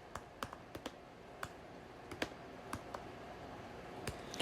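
Faint, irregular clicks of typing on a computer keyboard, about a dozen keystrokes.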